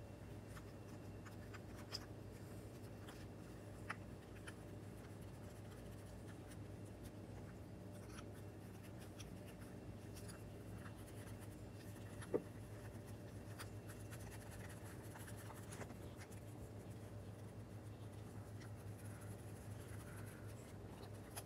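Faint handling noise of a rebuilt outboard fuel pump being assembled by hand, its plates, diaphragm and gasket stacked on the bolts and the bolts run in finger tight, with a few light clicks, the loudest about twelve seconds in, over a steady low hum.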